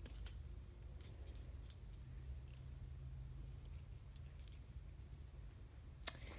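Faint, scattered metallic clinks and jingles of chained metal handcuffs being shifted and handled, in a few small clusters near the start, a second or two in, and near the end, over a low steady hum.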